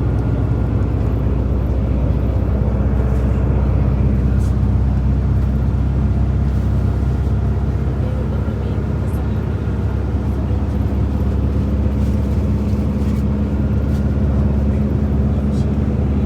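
Steady, loud engine drone of a running motor vehicle, with a constant low hum.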